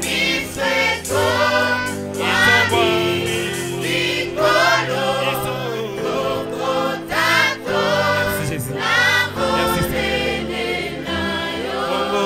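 Mixed gospel choir of men and women singing together, with keyboard accompaniment.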